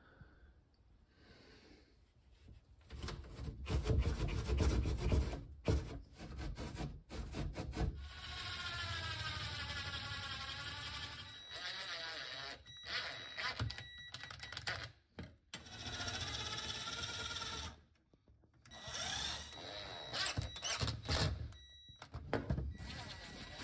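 Electric drill-driver running in several bursts of a few seconds each, driving screws through a plastic bracket into the wooden cabinet floor, the motor whine bending in pitch as the screws bite. Before the first burst come scattered knocks and clicks of handling.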